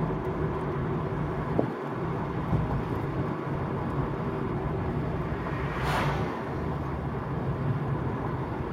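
Wind and road noise inside a Peugeot 307 CC driving with its roof down: a steady rush of air and tyre noise with the car running beneath it. A brief louder whoosh comes about six seconds in.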